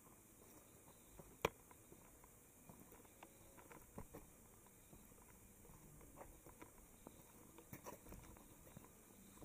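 Near silence with faint, scattered taps and clicks; one sharper click about one and a half seconds in.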